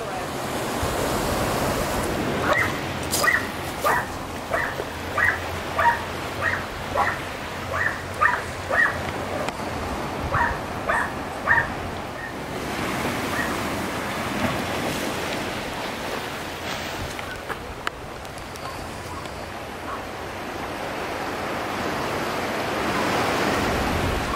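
A dog barking over and over, more than a dozen quick barks that stop about halfway through, over the steady wash of surf and wind.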